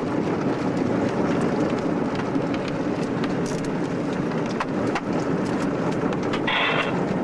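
Steady road and engine noise inside a moving car, with a few faint ticks.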